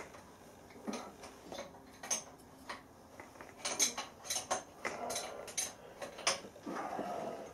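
Steel 17 mm spanner clicking and clinking against the nuts of a milling machine head as its hold-down bolts are loosened. Scattered light metallic taps, sparse at first and coming thicker over the second half.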